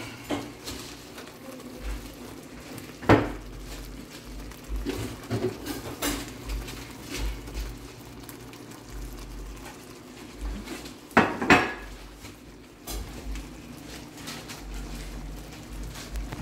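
Cookware clattering: scattered clinks and knocks of pots, pans and a metal ladle on an electric stovetop, the loudest pair about eleven seconds in, over a steady low hum.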